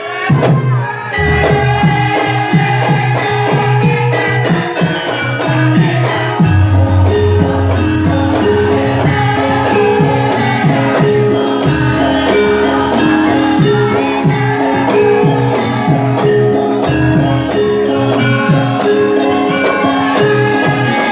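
Band music with a steady beat, a bass line changing notes every few seconds, and a melody over it.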